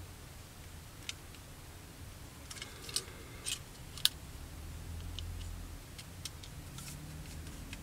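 Light clicks and taps of small plastic model-kit parts being handled and pressed together, as an insert panel is pushed into a fuselage half that it does not fit flush with. The clicks come singly and at uneven intervals.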